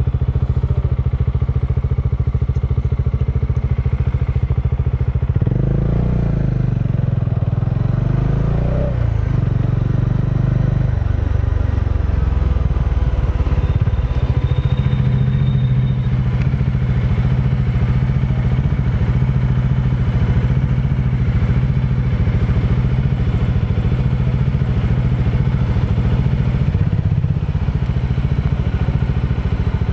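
Motorcycle engine running under way. The engine note rises and falls between about five and nine seconds in, then runs steady.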